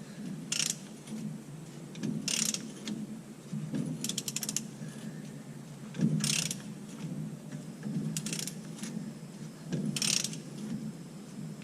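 Socket ratchet clicking in repeated short strokes, about one every two seconds, as it works a tight pinion nut loose on a rear differential.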